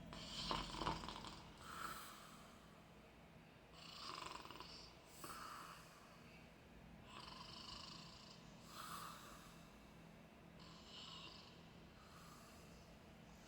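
Faint, soft snoring: slow, breathy breaths in and out, repeating every one to two seconds.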